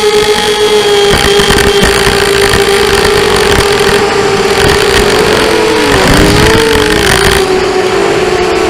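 A 250cc engine running at a steady speed with a loud, steady whine whose pitch wavers about six seconds in and again near the end. The uploader puts the noise down to bad bearings.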